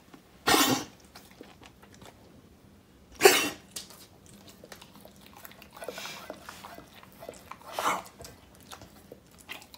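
Beagle at its water bowl, chewing and licking at a soaked tea bag. Three short sharp noises come about half a second, three seconds and eight seconds in, the middle one loudest, with quieter wet mouth sounds between them.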